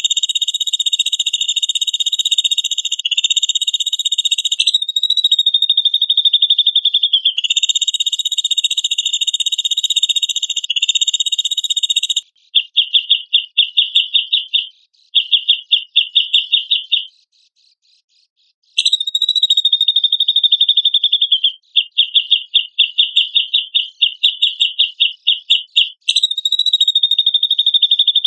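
Grey-cheeked bulbul (cucak jenggot) singing: long, high-pitched buzzy trills, broken in the middle into runs of quick, evenly spaced stuttered notes, with a pause of about two seconds about two-thirds of the way through.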